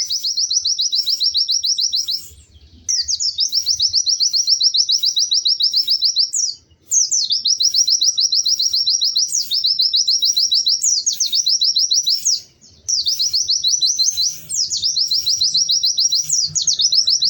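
Pleci (white-eye, Zosterops) singing: long runs of rapid, high chattering notes, each run several seconds long. The song breaks off briefly about two and a half seconds in, again near six and a half seconds, and once more past twelve seconds.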